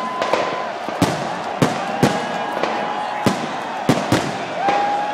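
Fireworks display finale: aerial shells bursting in a rapid, irregular string of bangs, about two a second, with long steady whistles sounding between them.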